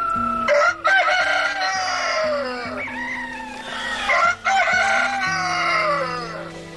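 Roosters crowing: two long drawn-out crows, each rising and then falling away at the end, the first about half a second in and the second about four and a half seconds in.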